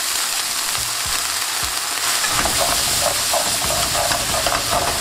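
Sliced onions sizzling in hot oil in a wok just after a splash of water to deglaze, with a steady hiss. A little past halfway a plastic spatula starts stirring and scraping them around the pan in repeated strokes.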